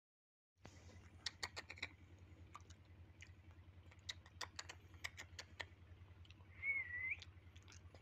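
Fingers tapping and scraping on a cardboard box, in short bursts of sharp clicks, over a low steady hum. Near the end a bird gives one short wavering whistled call, the loudest sound.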